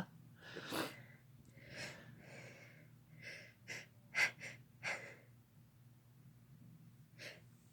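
A person's faint sniffs and short catching breaths, several of them in a row over the first five seconds and one more near the end: the build-up to a sneeze.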